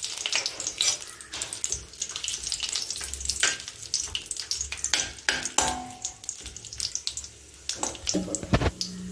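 Cashew nuts frying in hot ghee in a metal kadai, a crackling sizzle with many small sharp pops, mixed with the clicks and scrapes of a metal slotted spoon stirring them against the pan.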